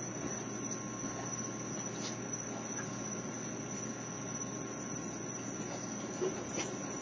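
Raccoons eating dry dog food, with faint scattered clicks and crunches over a steady hiss and a thin high electronic whine.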